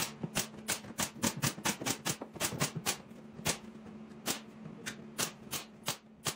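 Pneumatic nail gun firing nails into plywood cabinet panels, about twenty sharp shots, several a second for the first three seconds and then more spread out.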